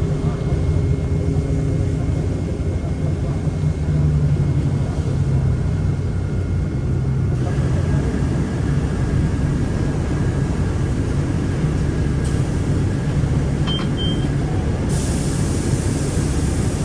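City bus interior: a steady low engine and road rumble while the bus drives between stops, with a short high beep about fourteen seconds in and a hiss joining near the end.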